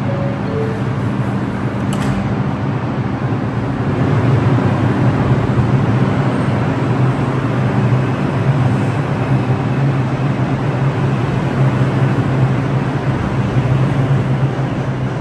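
An R142 subway train sounds a falling two-note door chime, its doors shut with a click, and it pulls out of the station. Its motors hum steadily and the running noise grows louder from about four seconds in as the cars pass.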